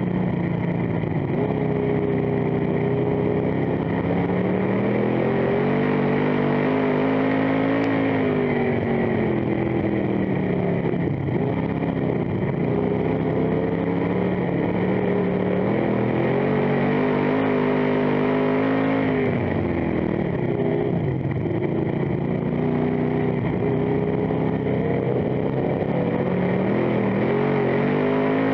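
Dirt-track stock car's engine heard from inside the cockpit under racing load, its pitch climbing on the straights and falling back into the turns, over and over through the laps.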